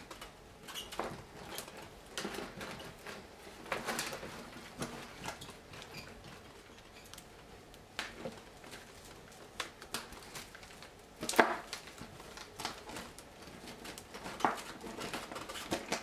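Thin dry twigs rustling and crackling against each other and the tabletop as they are bent and woven by hand into a wreath. Irregular clicks run throughout, with a few sharper cracks; the loudest comes about two-thirds of the way through.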